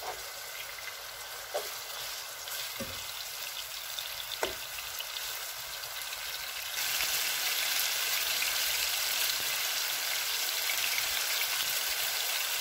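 Marinated chicken pieces sizzling as they fry in oil in a pan. A spatula stirring them gives four light knocks in the first five seconds, and the sizzle gets louder about seven seconds in.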